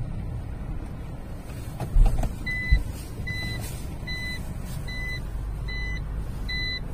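A car's reverse-gear warning beeping evenly, about once every 0.8 seconds, from a little over two seconds in, over the steady low rumble of the car as it backs into a parking space. Two low thumps, the loudest sounds, come just before the beeping starts.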